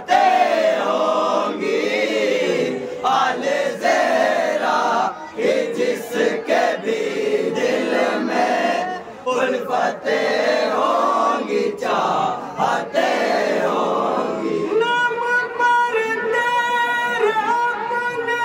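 Men's voices singing a Muharram manqabat, a melodic devotional recitation in Urdu with a chorus joining in. From about fifteen seconds in, a long steady note is held.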